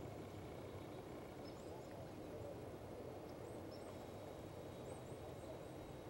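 Faint, steady outdoor background hiss with a few short, high, thin chirps from small birds scattered through it.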